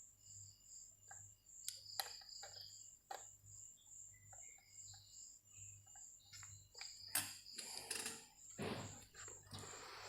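Faint scattered clicks and taps of a laptop being handled, over a faint high-pitched chirp that repeats about two and a half times a second.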